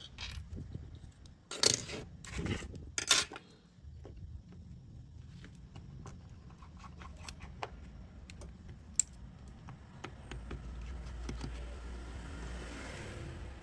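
Small metal tools and phone parts clicking and clattering on a wooden desk: a few sharp clicks in the first three seconds, then lighter scattered taps. Near the end comes a faint scratchy turning as a precision screwdriver drives a screw into the phone's frame.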